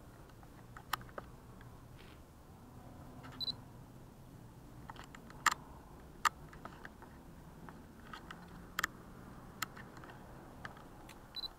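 Camera handling noise: about eight scattered sharp clicks as the camera is worked, with two short high beeps, one about three and a half seconds in and one near the end, over a faint low background hum.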